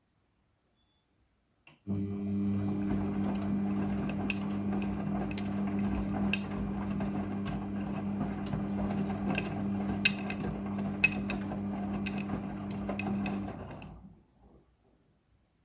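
Midea front-loading washing machine's drum motor starting with a click and running with a steady hum for about twelve seconds, with scattered sharp clicks, then winding down and stopping near the end: the drum turning the load during the rinse cycle.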